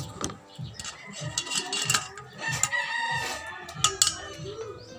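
A rooster crowing, with a couple of sharp clicks about four seconds in.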